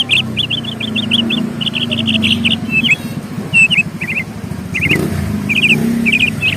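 Small birds chirping in quick runs of short, high notes, about ten to a second, with short gaps between runs. A low, steady rumble runs underneath.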